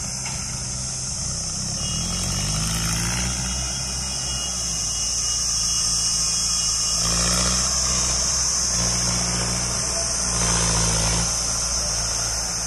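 Mahindra Arjun 555 DI tractor's four-cylinder diesel engine labouring as it pulls a loaded trolley up a dirt track, its pitch rising about two seconds in and then swelling and dropping several times. A steady high hiss sits over it.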